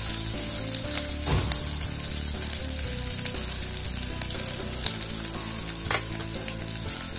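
Onion, green chilli, curry leaves and mustard seeds sizzling as they fry in hot oil in a clay pot for a curry tempering. A few sharp clicks stand out about a second in and again around five and six seconds in.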